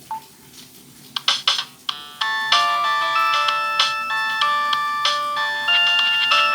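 Nokia ringtone played through the loudspeaker of a Samsung SGH-A157 flip phone: a short beep and a few clicks, then the tune starts about two seconds in as a melody of chiming electronic notes.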